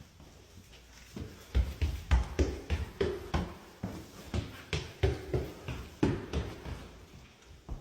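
Quick footsteps thudding on a floor, about three a second, starting about a second and a half in and fading near the end.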